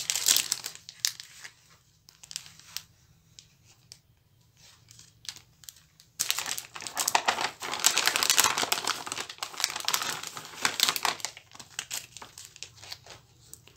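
Clear plastic packaging crinkling as it is handled. There are scattered crackles at first, then a dense spell of crinkling lasting about five seconds from about six seconds in, as a plastic-wrapped pack of pens is drawn out of the kit's plastic pouch.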